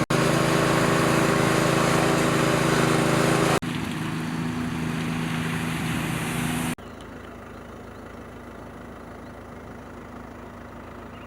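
Engines running steadily with a steady hum and a noisy rush over it, in three edited shots; the sound drops abruptly in level at each cut, about a third of the way in and again past halfway.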